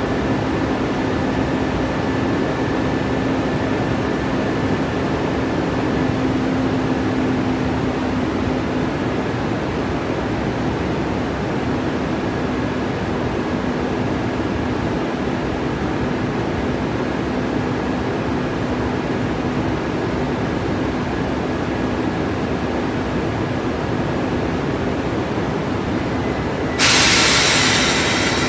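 EF65 electric locomotive standing with its freight train, a steady hum running under the station noise. Near the end a sudden loud hiss of air starts and keeps going.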